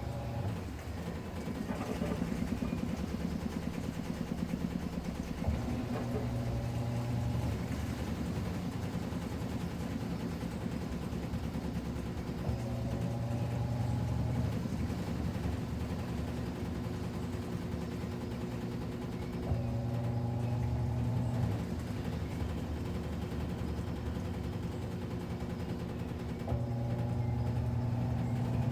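Midea Wave-Agitator top-load washing machine agitating: its motor hums steadily, and a rising whine comes in strokes of about two seconds, roughly every seven seconds.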